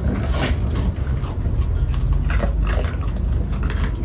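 Several raccoons eating dry kibble: scattered small crunches and chewing over a steady low rumble.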